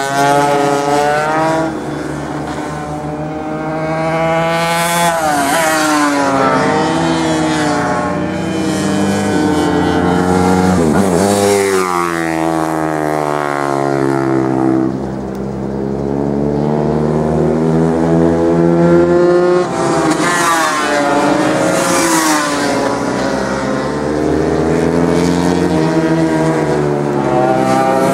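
Engines of several small racing motorcycles revving up and dropping back as they accelerate and brake around corners, their pitches overlapping. One passes close by about eleven seconds in, its pitch sweeping down.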